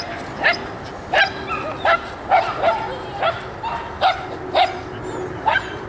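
A dog barking in a quick, uneven run of short, sharp barks, about ten in six seconds.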